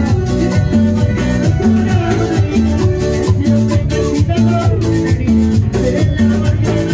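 Loud dance music with a steady, repeating beat over a strong bass line.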